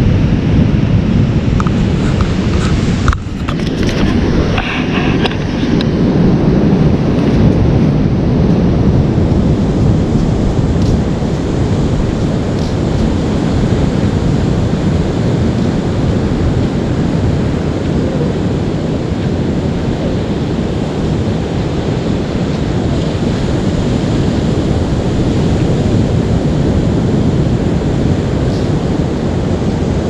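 Ocean surf breaking on a rocky beach, a steady rush of waves, with wind rumbling on the microphone. There is a brief bump about three seconds in.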